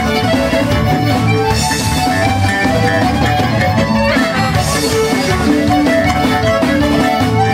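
Live Celtic rock band playing a fast tune: fiddle and button accordion on the melody over electric bass and a drum kit.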